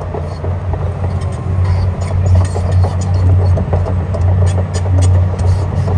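An excavator's diesel engine runs steadily, getting louder about two seconds in, with scattered sharp clicks and clanks over it.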